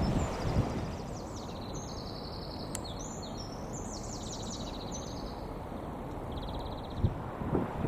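A small songbird singing one long, varied song of fast trills and chirps that stops after about seven seconds, over a steady low rumble of background noise. A few low thumps come at the start and again near the end.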